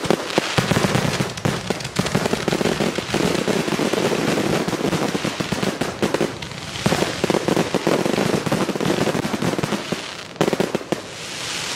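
Aerial fireworks bursting in quick succession, with dense crackling and many sharp bangs. Near the end the bangs stop and a smooth rushing hiss swells.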